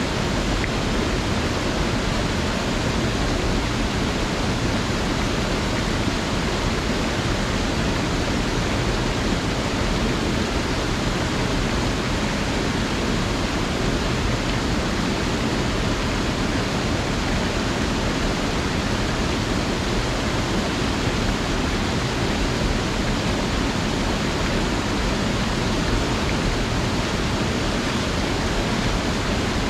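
Small mountain creek's flowing water: a steady, even rush of noise that does not change.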